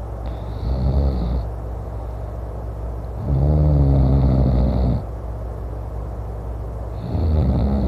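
A man snoring loudly in his sleep: three snores about three seconds apart, the middle one the longest and loudest, over a steady low rumble.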